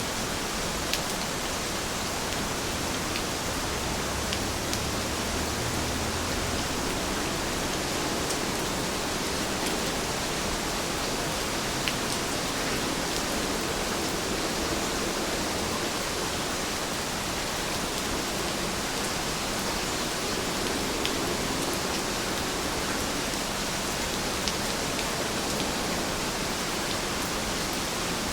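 Steady rain falling, an even hiss with a few sharper ticks scattered through it.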